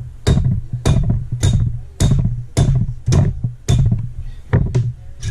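Hammer blows on a Honda CRF450 cylinder head, about two a second, knocking the head loose from the cylinder during engine teardown.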